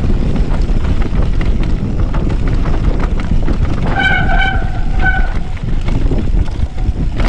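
Mountain bike clattering down a dusty dirt trail at speed, with heavy wind buffeting the camera's microphone. A short, steady squeal sounds twice, about four and five seconds in.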